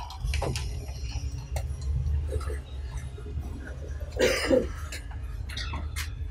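Room noise of a press-conference table and its cloth being put back in place: a steady low rumble with scattered small knocks and rustles, and a short, louder noise about four seconds in.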